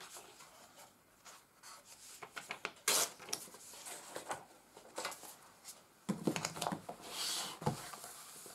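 Desk handling noises as a Rhodia dot pad is fetched and set down: scattered small clicks, a sharp knock about three seconds in, and paper rubbing and rustling near the end.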